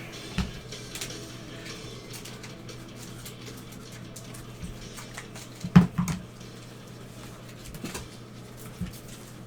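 Trading cards being handled on a table: small scattered clicks and rustles, with a louder knock a little before six seconds in, over a steady low hum.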